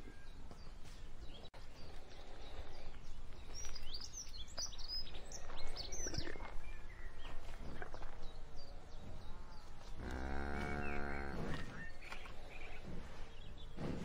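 Pasture ambience: small birds chirping, and about ten seconds in a cow moos once, one low call of about a second and a half.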